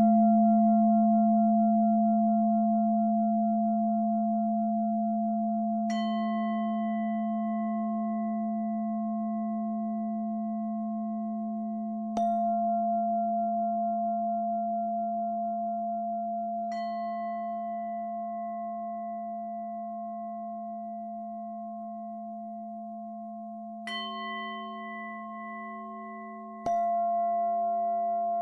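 Meditative ringing tones: a low steady drone with bell-like strikes five times, every three to six seconds. Each strike leaves several clear tones that ring on and fade slowly.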